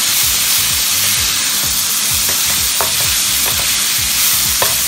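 Chopped tomatoes and chillies sautéing in hot oil in a ceramic dish, a steady sizzle as they cook down until soft and fragrant, with a few short squeaks.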